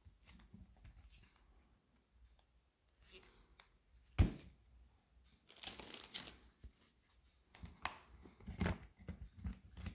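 Hands fitting the switch module and wiring into the plastic housing of a Hilti SID 4-A22 impact driver: scattered plastic clicks, knocks and rustles, with one sharp knock about four seconds in.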